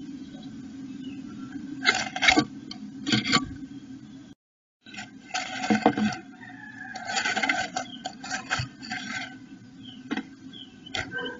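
Blue tit rustling and scraping moss and nesting material in a wooden nest box, in irregular bursts of about a second, as it shuffles its body in the nest cup to shape it.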